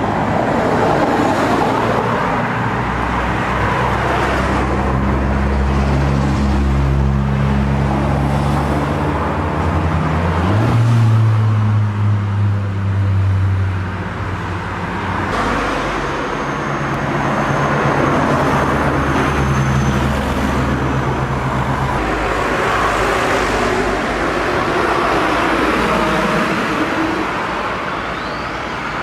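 Car engines running in slow-moving roadside traffic, a steady low hum that shifts as vehicles come and go. About ten seconds in, one engine steps up in pitch and holds there for a few seconds.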